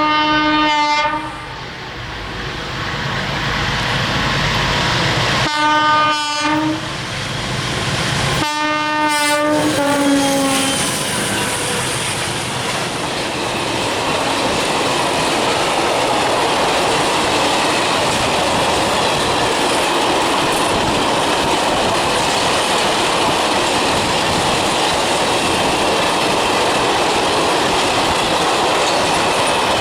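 Train horn sounding three blasts: the first ends about a second in, the second comes about six seconds in, and the third, longer one drops in pitch at its end. Then the steady noise of the train running past on the rails, with wheel clatter.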